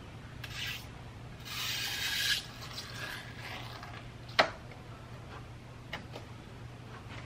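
Hands working a car's headliner overhead: a scraping rub about two seconds in, then a single sharp click a little past the middle, with a few fainter clicks, over a steady low hum.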